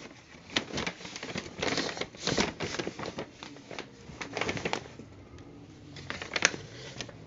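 Paper and plastic shopping bags rustling and crinkling irregularly as they are handled and opened, with the loudest crinkles about two seconds in and again shortly before the end.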